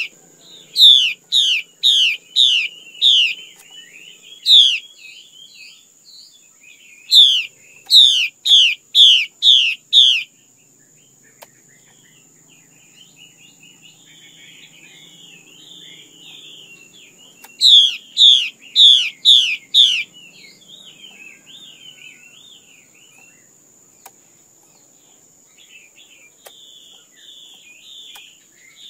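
Female Chinese hwamei calling: three runs of five or six loud, sharp down-slurred whistled notes, about two a second, with softer chattering warbles between the runs.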